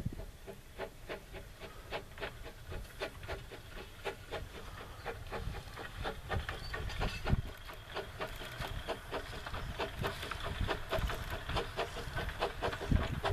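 Steam locomotive Dolgoch, an 1866 narrow-gauge tank engine, chuffing at work in a quick, even rhythm of exhaust beats. The beats grow louder towards the end as the train draws nearer.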